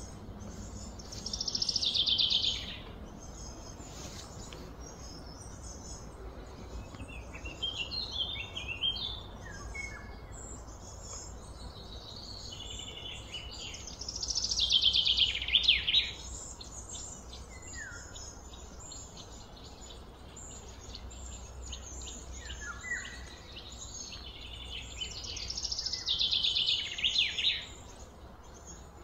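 Birds singing: three loud, rapid trilled song phrases, each about a second and a half long, come near the start, about halfway through and near the end, with softer chirps between them. A steady low hum of outdoor background noise runs beneath.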